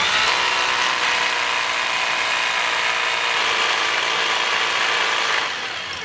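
Rotary hammer drilling a hole for a drop-in anchor into concrete. It spins up with a quick rising whine, runs steadily and loudly, and stops about five and a half seconds in.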